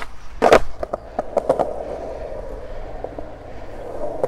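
Skateboard on concrete: a loud clack of the board hitting the ground about half a second in, then a few lighter clacks, over the steady sound of the wheels rolling.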